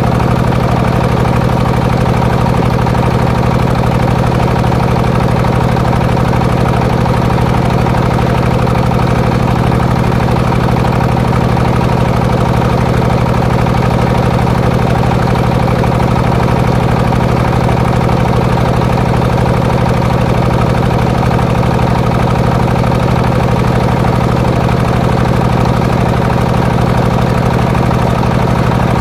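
Engine powering a homemade circular sawmill rig, running steadily at an even speed with a constant low hum and no rise or fall in load.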